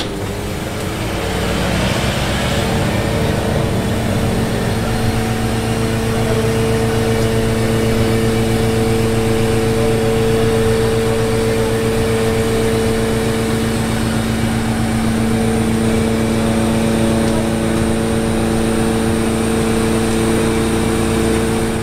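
An engine or motor running steadily at one constant pitch: a low hum with a higher tone above it, and no revving.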